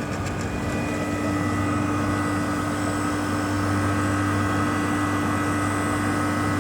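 1979 Mitsubishi heat-and-cool air conditioner running with its Bristol reciprocating compressor: a steady hum with several constant tones above it. The unit is working well and cooling.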